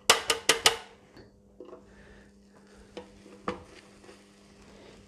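A metal box grater clatters four times in quick succession against the plate it stands on, just after grating cheese. A few faint clicks and taps follow as bread is laid on a panini press, over a low steady hum.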